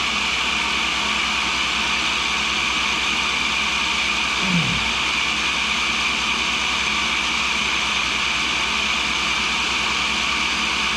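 Cincinnati No. 2 tool and cutter grinder running with its wheel spinning free, not cutting: a steady motor and spindle whir with an even hiss.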